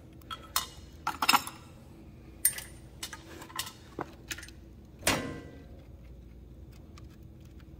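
Scattered light metallic clicks and clinks as battery terminal bolts, washers and ring-terminal wires are taken off a motorized dolly's batteries, with a louder clink about five seconds in.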